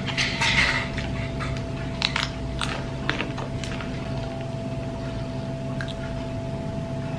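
A person eating: crunchy bites and chewing with a few sharp clicks in the first few seconds, then quieter, over a steady hum.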